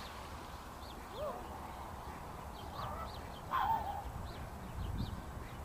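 Birds calling: a few short, curved calls, the loudest about three and a half seconds in, over many faint high chirps and a steady low rumble.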